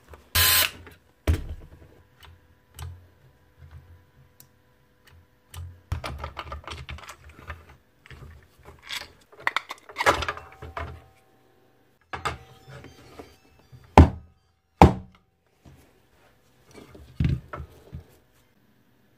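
Parts of a cordless circular saw being handled during disassembly: irregular knocks, clatters and rattles of plastic housing and metal motor parts against each other and the workbench. Two sharp knocks come close together about three-quarters of the way through.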